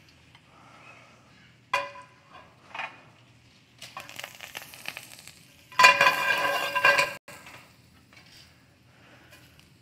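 Mycoprotein cubes frying in olive oil in a stainless steel sauté pan, stirred and moved around, with metal clinks and scraping against the pan. A ringing clink comes near two seconds in, and the loudest stretch, a harsh scrape with a ringing edge, runs from about six seconds and stops abruptly just after seven.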